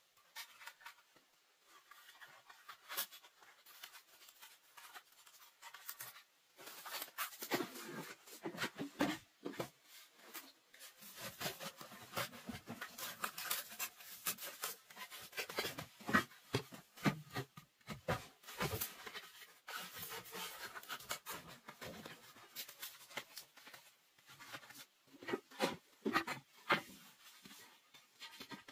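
Bamboo poles being lashed together by hand with thin binding strips: irregular scraping, rubbing and light knocking of bamboo as the strips are wrapped and pulled tight. It is sparse at first and gets busier after a few seconds.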